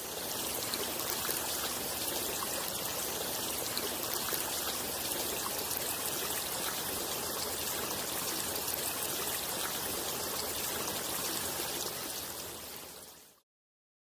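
Steady rushing of running water, even and unbroken, fading in at the start and out near the end.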